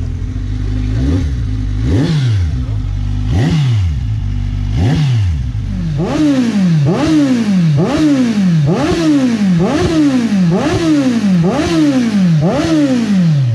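Kawasaki Ninja 1000's inline-four engine idling and being blipped on the throttle through its exhaust. There are a few spaced revs at first, then from about six seconds in a run of about nine quick blips, roughly one a second, each rising sharply in pitch and falling back.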